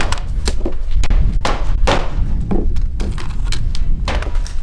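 Gunfire from other shooters: sharp reports in quick, uneven succession, several a second at times, over a low rumble of wind on the microphone.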